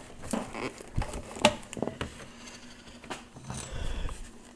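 Scattered light clicks and knocks of handling on a workbench as a heat gun is plugged in and set in place, the sharpest knock about one and a half seconds in; the heat gun is not yet running.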